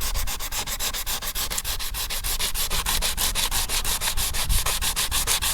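Coarse P80 sandpaper rubbed quickly back and forth over a steel car bonnet, several rasping strokes a second, scouring away flaky, poorly adhered paint down to the bare metal.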